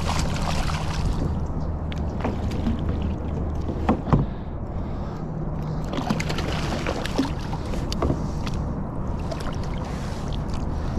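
Hooked bass thrashing and splashing at the surface right beside a kayak as it is played in, with scattered sharp splashes and knocks over a steady low hum.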